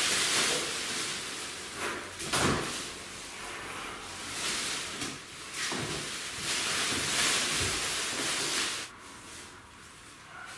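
Thin plastic protective wrapping being pulled off and crumpled by hand, a dense crinkling rustle with a couple of soft knocks about two seconds in. The rustle dies down about nine seconds in.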